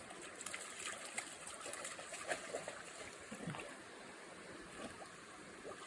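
Shallow stream trickling faintly, with scattered small splashes and ticks of water.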